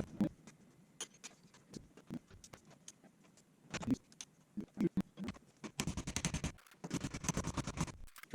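Light taps on a 1987 Honda XL600R front fork tube, knocking it downward to free it. The taps come singly and spaced apart at first, then in a quick run of many taps over the last two and a half seconds.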